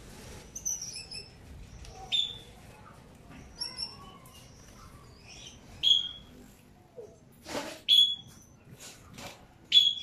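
Caged Gouldian finches and canaries chirping: many short, high calls, the loudest sharp notes about every two seconds, with a few brief rustles among them.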